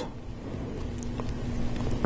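A few faint clicks of plastic LEGO Technic parts being handled as a gear is fitted onto an axle, over a low steady background hum.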